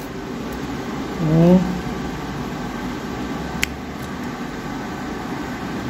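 Steady fan hum, with a short voiced sound about a second and a half in and a single sharp click about halfway through.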